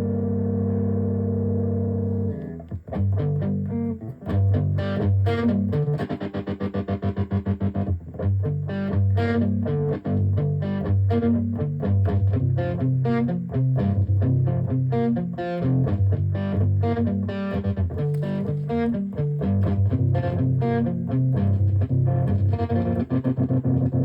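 Electric guitar played through a homemade overdrive pedal built from a broken cassette player. A held chord rings for about two seconds, then gives way to picked riffs with bursts of fast repeated notes.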